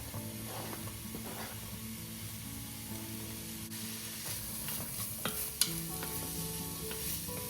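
Diced carrots, celery and onion sizzling in butter in a pot while being stirred, with two sharp knocks of the utensil against the pot a little past halfway.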